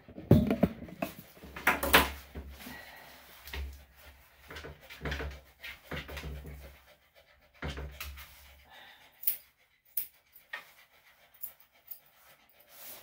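Senior Bichon/Shih Tzu mix panting heavily, one breath every second or two for the first eight seconds or so. Near the end there are a few sharp clicks as scissors trim the fur around its paw.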